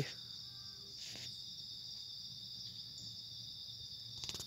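Steady high-pitched chorus of insects, a continuous chirring that holds without a break, with a brief soft rustle about a second in.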